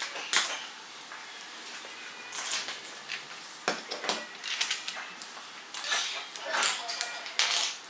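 Hard plastic parts of a toy robot kit clicking and clattering as they are handled and fitted together, with a metal screwdriver knocking on plastic and the tabletop. Irregular sharp clicks and knocks come in clusters, the loudest near the end.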